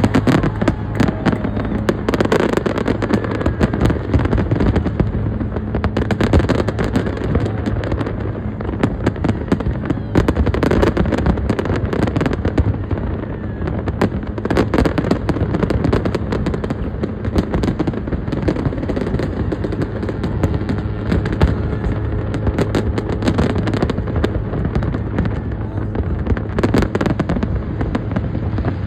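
Fireworks display: a dense, continuous run of bangs and crackling from exploding shells, over a steady low drone.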